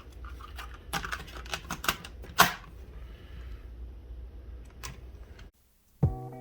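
Plastic clicks and clunks of a cassette being loaded into a Sony Walkman WM-FX401 and its controls worked, the loudest a sharp click about two and a half seconds in. The sound cuts out briefly near the end, then music starts playing back.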